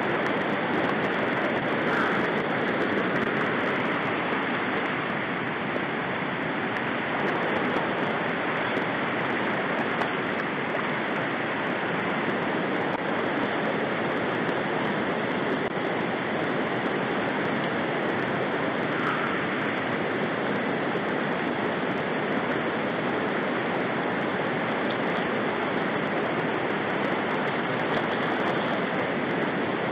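Shallow river rapids rushing steadily over rocks, a continuous even wash of water.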